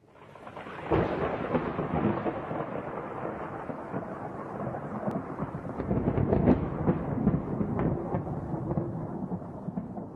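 Thunder rumbling and crackling. It swells in from silence and breaks into a loud clap about a second in, then keeps rolling with another peak around six and a half seconds.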